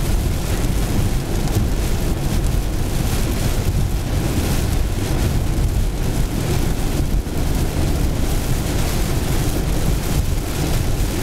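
Heavy rain pounding a moving car, mixed with tyre spray and road noise on a waterlogged highway, heard from inside the car as a loud, steady rush.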